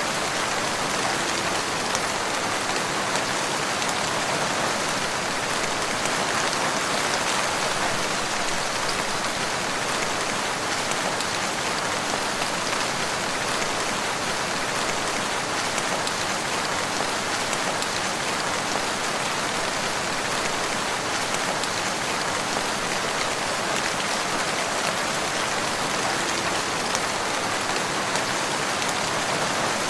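Steady rain falling, a dense, even patter of raindrops that keeps up without a break.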